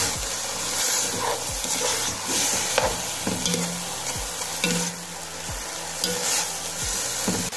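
Chicken and chopped vegetables sizzling in a hot pan while a spoon stirs chili garlic sauce through them, with repeated scrapes and knocks of the spoon against the pan.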